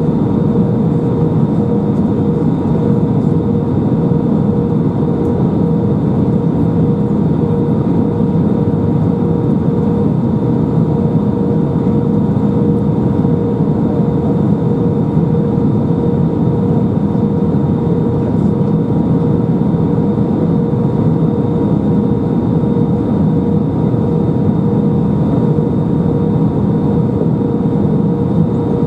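Airbus A319 cabin noise heard from a window seat: the jet engines and airflow making a steady hum with a few constant whining tones, holding even with no surge or change.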